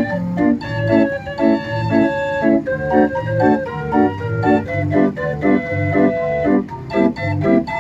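Mechanical fairground organ playing a tune: a melody over an oom-pah accompaniment of bass notes and off-beat chords.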